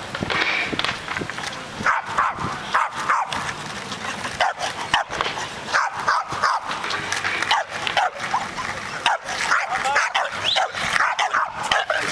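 A dog barking over and over in short, high yips, one or two a second.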